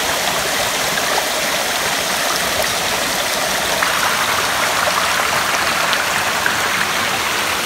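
Small woodland waterfall and creek rushing and splashing over rocks, a steady water noise that grows a little brighter about four seconds in, as the sound comes from close to the cascading water.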